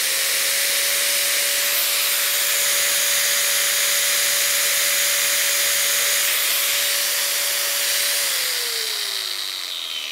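Metabo 125 mm angle grinder with straight-cut bevel gears and no speed control, its gearbox freshly greased, running free at full speed with a steady whine. About eight seconds in it is switched off and winds down, its pitch falling.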